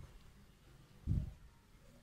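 Pizza dough being kneaded by hand in a glass bowl: soft, dull thumps as the dough is pressed and folded against the bowl, the loudest about a second in.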